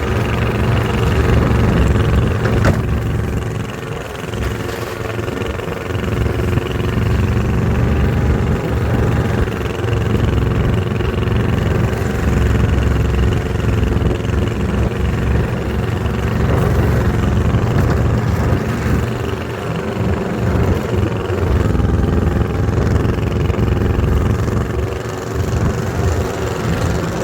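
Yanmar diesel engine of an Ockelbo snowmobile running steadily while the sled is driven along, a constant low engine note.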